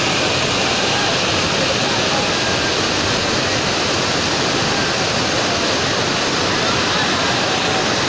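A large waterfall pouring down a rock face onto boulders: a steady, loud rush of water.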